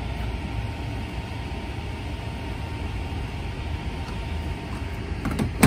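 Steady outdoor background noise, a low rumble with hiss, with a few faint clicks and a short sharp knock near the end.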